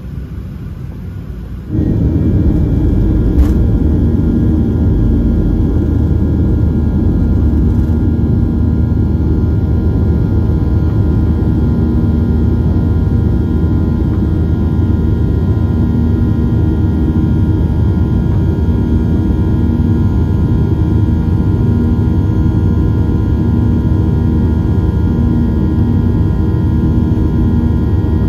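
Jet engine noise heard inside the cabin of a Boeing 737-800 climbing out after takeoff. The CFM56 engines run loud and steady, a deep drone topped by several steady whining tones. The roar comes in abruptly about two seconds in after a quieter hum, and there is one sharp click shortly after.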